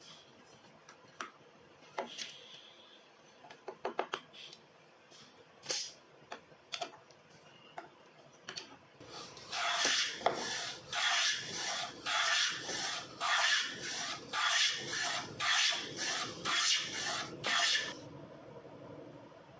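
Wooden rebate plane shaving along the edge of a board, a run of quick, even scraping strokes, about two a second, starting about halfway through and stopping near the end. Before that, only a few light clicks and taps.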